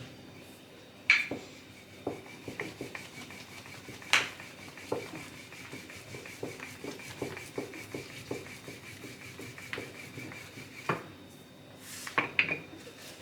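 Kitchen utensils in use during paratha-making: a run of light knocks and rubbing, with sharper clacks about a second in, around four seconds, near eleven seconds and a quick cluster near the end. A faint, steady high whine sounds through most of it and stops at the clack near eleven seconds.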